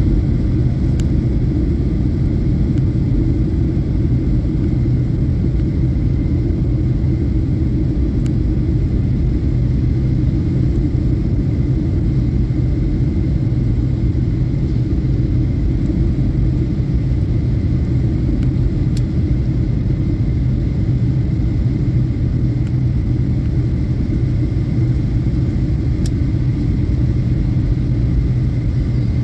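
Steady low rumble of an airliner's jet engines and airflow, heard inside the passenger cabin in flight.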